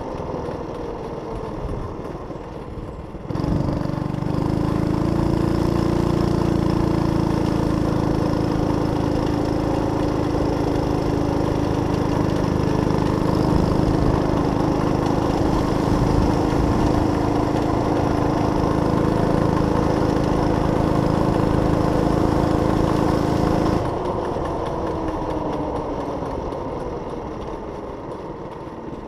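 Harbor Freight 6.5 hp clone single-cylinder engine on a mini trike with a torque converter. It runs at low revs for the first three seconds, then the throttle opens suddenly and it runs steadily at high revs for about twenty seconds. Near the end the throttle is let off and the revs and loudness fall away.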